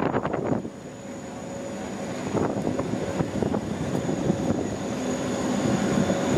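Steady rumble of aircraft engine noise that grows gradually louder after the first second.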